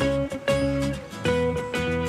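Background music of plucked acoustic guitar, a new note or chord roughly every half second.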